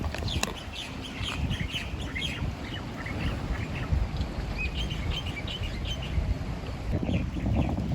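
Many small birds chirping in quick, overlapping calls, with wind rumbling on the microphone.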